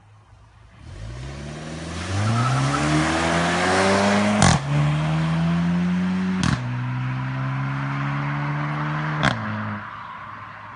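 Škoda Octavia RS 230's turbocharged four-cylinder engine accelerating hard through the gears. Its note climbs steadily, broken by three upshifts, each marked by a single sharp crack from the exhaust and a drop in pitch. Near the end the engine lets off and fades.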